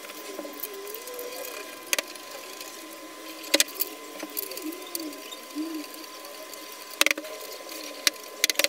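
Several sharp knocks and clicks, a second or more apart, from the wooden frame of a sofa bed being handled and fitted, over a faint background of wavering voice-like sounds and a steady thin tone.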